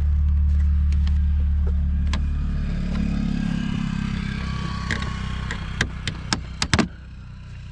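A car running with a steady low hum, which drops away about three seconds in; several sharp clicks and knocks follow near the end.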